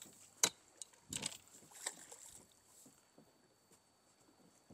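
A few short, sharp knocks and handling noises in a small boat, spaced apart with faint quiet between them, as the freshly caught fish is dealt with.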